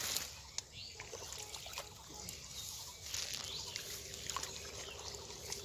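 Water trickling and dripping through the mesh of a bamboo-framed hand net as it is lifted from shallow, weed-choked water, with small scattered splashes.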